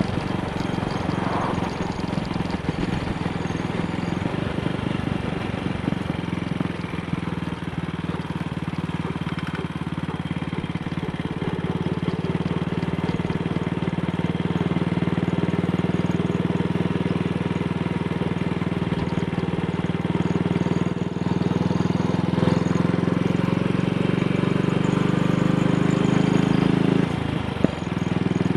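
AJS Model 8 motorcycle engine running steadily under way, pulling cleanly with no misfire now that the carburettor needle clip has been reseated. The engine sound briefly drops and picks up again near the end.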